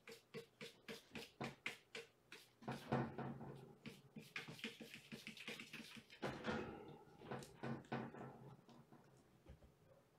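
Kittens playing on a wooden floor and furniture: a quick run of light taps and knocks, then a few seconds of scrabbling and rustling, then several more knocks.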